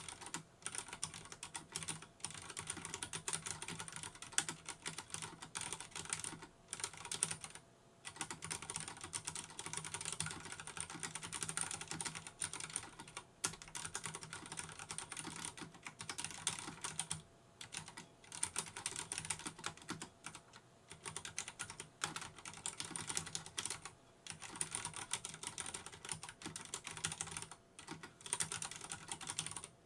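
Fast, continuous typing on a Vortex Race 3 RGB mechanical keyboard with Cherry MX Brown tactile switches, broken by brief pauses every few seconds.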